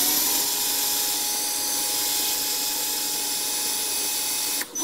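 Power drill spinning a threaded Z-axis rod at steady speed while a hand-held brass Z-nut rides along the threads, working silicone lubricant into the nut. The drill stops abruptly near the end.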